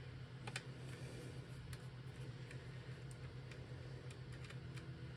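Faint, irregular small clicks of a screwdriver bit and screw being worked out of a mini PC's metal chassis, about one or two clicks a second, over a steady low hum.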